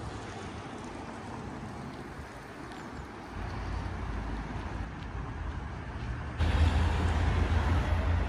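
Road traffic on a city street: a steady low rumble of passing vehicles that grows louder about three seconds in and jumps louder suddenly near the end.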